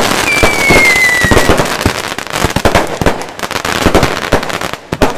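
Many consumer fireworks and firecrackers going off at once, a dense, irregular barrage of bangs and crackles. A high whistle falls in pitch near the start.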